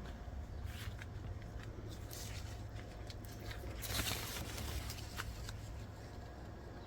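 Rustling and light scraping with scattered short clicks over a steady low hum, the loudest rustle about four seconds in.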